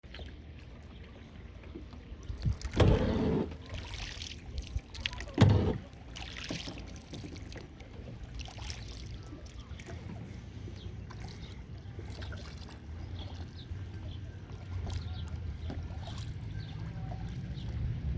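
Kayak paddling: the paddle blades dip into the water and drip. Two louder thumps come about three and five and a half seconds in.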